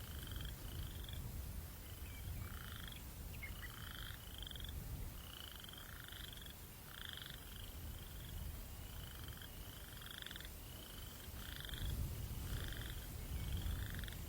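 Night chorus of calling animals: short, slightly rising calls repeating about twice a second at two pitches, one high and one lower. A low breeze rumble runs under them and grows louder near the end.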